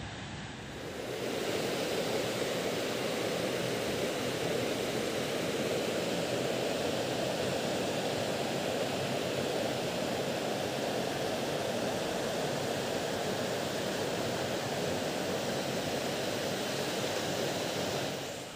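River water rushing over rocky rapids: a steady, even rushing noise that grows louder about a second in and stops just before the end.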